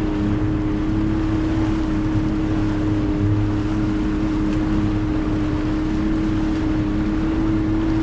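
Outboard motor running at a steady cruising speed as the boat is underway, its even engine hum over wind and water rush.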